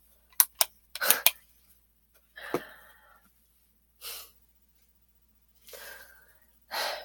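A person breathing and making mouth noises between spoken lines. There are a couple of small clicks, then a sharp breath about a second in, followed by several softer breaths spaced a second or so apart.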